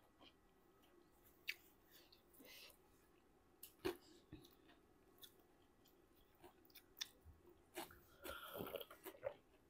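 Faint chewing and mouth smacks of someone eating, with scattered soft clicks. A sharper click comes about four seconds in, and a short run of louder crunchy noise near the end.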